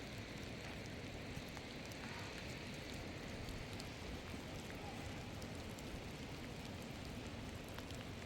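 A steady hiss of noise with faint scattered ticks.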